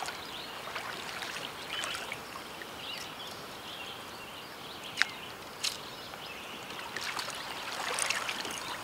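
River water trickling and splashing around a landing net with a fish in it. There are two brief sharp sounds about five seconds in.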